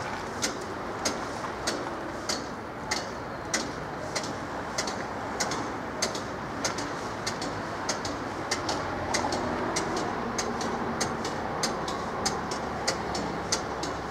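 A sharp tick repeating evenly about every 0.6 s over steady road-traffic noise, with a car engine passing across the open level crossing around the middle.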